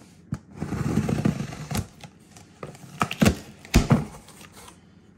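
Scissors cutting through a cardboard box: a run of crunching cuts about a second in, then several sharp snips and clicks a little later.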